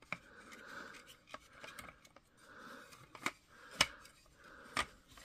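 Plastic cover of a Dewalt DCE089G laser level being jiggled loose by hand: soft rubbing scrapes about once a second, broken by several sharp plastic clicks.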